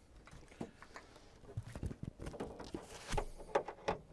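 Scattered light knocks, clicks and rustles of hands handling a flat-screen TV and its parts as it is put back together, the knocks coming thicker in the second half.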